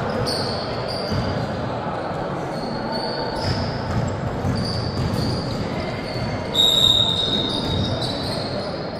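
A basketball game on an indoor court: sneakers squeaking on the floor in short high squeals, a ball bouncing, and players' voices echoing in the hall. A louder, drawn-out squeak comes about seven seconds in.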